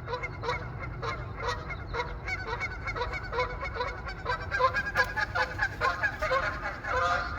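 A pair of Canada geese honking back and forth, a few short honks a second, coming thicker and louder from about halfway through as the two birds' calls overlap.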